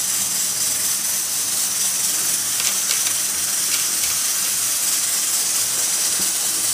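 Coconut and sesame oil sizzling steadily in an iron kadhai as freshly chopped herbs, leaves and flowers fry in it. A few faint clicks come in the middle.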